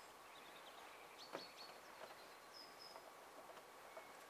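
Near silence outdoors: faint birdsong of short high chirps, with a single soft knock about a second and a half in.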